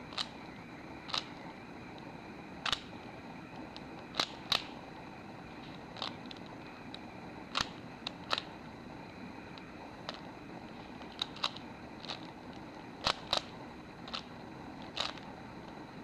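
Rubik's cube being twisted by hand: sharp, irregular clicks as the layers turn, sometimes two in quick succession, over a steady faint hiss.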